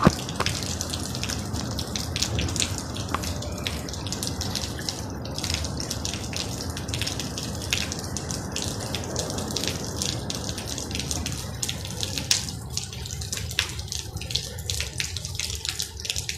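Rain falling, a steady hiss of water with many sharp drips and splashes; the hiss thins near the end.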